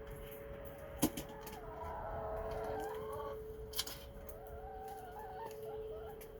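Chickens calling over the steady tone of an outdoor tornado warning siren: one long, wavering call about a second and a half in, and a shorter one about four and a half seconds in. Two short knocks come about a second in and just before four seconds.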